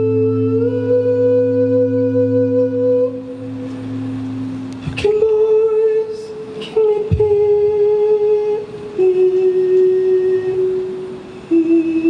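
Live ballad: a sustained keyboard chord from a Kurzweil PC88 stage piano rings for about five seconds, then a male singer's wordless, hummed held notes step down in pitch, one long note after another.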